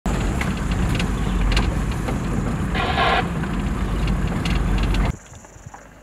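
Safari 4x4 driving on a rough dirt track: steady engine and road rumble with occasional knocks and rattles, and a brief higher-pitched sound about halfway through. It cuts off abruptly just after five seconds.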